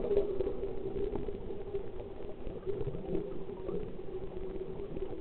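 Muffled underwater noise recorded through a camera housing: bubbling from a scuba diver's breathing over a steady low hum.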